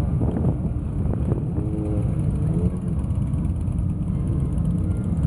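Many motorcycles riding past slowly in a procession, their engines running together in a continuous low din, with a few brief rises and falls in pitch from single bikes between about one and three seconds in.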